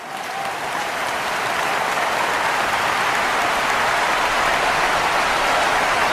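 A large crowd applauding, a dense even clapping that fades in over the first second and then holds steady.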